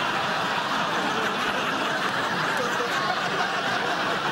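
Studio audience laughing together, one long, even crowd laugh in response to a punchline.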